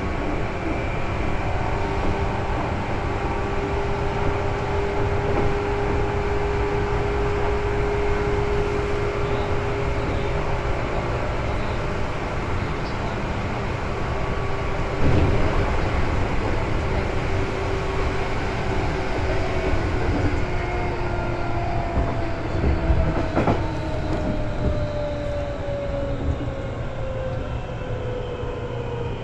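Seibu 2000 series electric commuter train running on the line: a steady rumble with motor and gear whine, and two sharp knocks from the wheels over the track about halfway through and again later. In the last third the whine tones slide gradually lower in pitch as the train slows.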